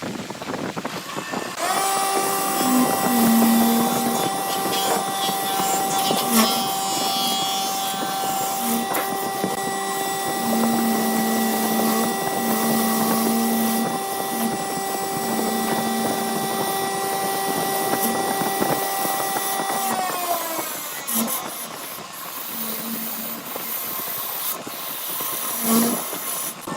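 Electric motor of a wood lathe starting about two seconds in and running at a steady whine, with a lower hum cutting in and out. Near twenty seconds in it is switched off and its pitch slides down as it spins to a stop, followed by rubbing and scraping.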